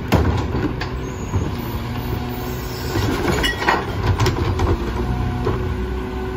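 Rear-loader garbage truck running while its hydraulic cart tipper lifts a blue recycling cart and dumps it into the hopper. There is a sharp knock at the start and a burst of clattering recyclables about three to four seconds in.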